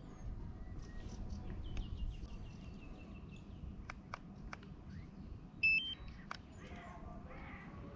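DJI FPV remote controller being switched on: a few sharp button clicks, then a short two-tone electronic beep about six seconds in as it powers up.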